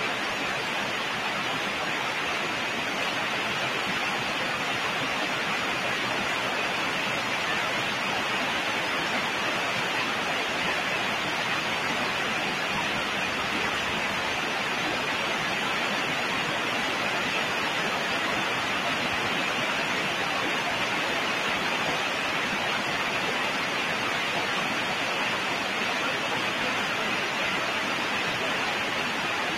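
A steady, even hiss of noise with no change and no distinct events.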